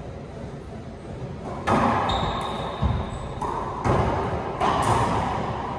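Racquetball rally: four sharp smacks of the rubber ball off racquet strings, walls and floor, about a second apart, starting nearly two seconds in. Each smack echoes around the enclosed court, and a short high squeak sounds between the first two.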